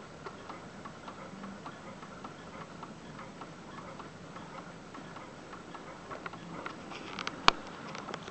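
Eight-day pendulum mantel clock movement ticking steadily. A few louder clicks come near the end, one sharp click about seven and a half seconds in standing out as the loudest sound.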